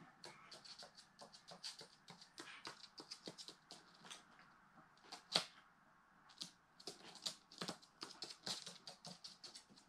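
A Eurasian magpie's claws and beak tapping on a hard laminate floor and at a cat food dish as it walks about and pecks at the food: light, irregular clicks, several a second, with one sharper click about halfway through.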